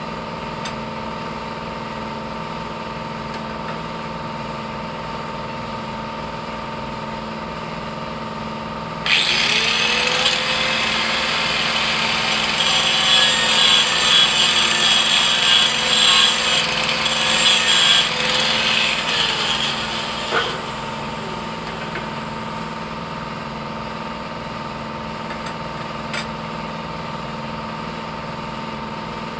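Electric angle grinder starts about nine seconds in and grinds a steel plate on a garden tractor frame for about eleven seconds, its motor note holding steady under the grinding, then spins down. A steady mechanical hum runs underneath.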